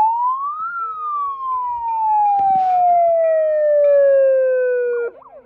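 A siren sounding one long wail: it climbs in pitch for under a second, then slides slowly down for about four seconds and cuts off suddenly near the end.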